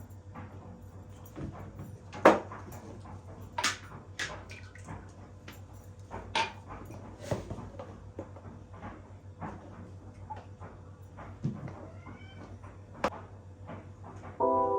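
Domestic pet animal sounds: scattered clicks and knocks over a low steady hum, with a short faint call about twelve seconds in.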